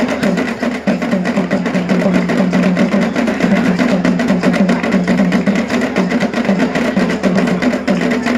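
Loud traditional drumming: several drums beaten in a fast, dense, unbroken rhythm for a dance.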